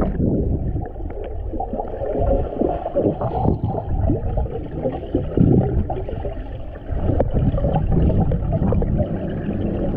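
Muffled underwater gurgling and rushing of water and air bubbles as a swimmer moves through a pool, heard with the microphone submerged.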